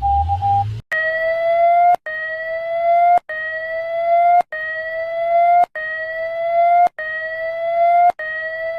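Emergency alert alarm tone: a short rising whoop, repeated about every 1.2 seconds and cut off sharply before each repeat. It follows a steady beep that stops just under a second in.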